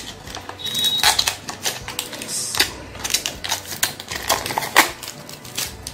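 Thin protective plastic film being peeled off a clear plastic hard-drive enclosure, with the case handled at the same time. It makes irregular crackling and sharp clicks.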